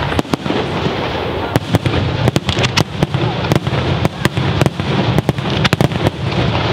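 Fireworks battery in the Bolognese style firing: many sharp bangs of shells bursting at irregular intervals, several a second, over a dense, continuous rumble.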